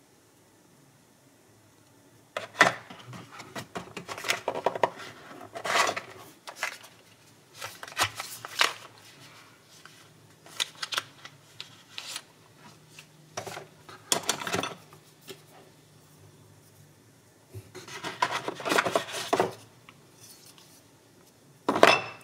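Hands handling a cardboard box and its paper and plastic packaging: bouts of rustling, scraping and small knocks, with a sharp knock near the end.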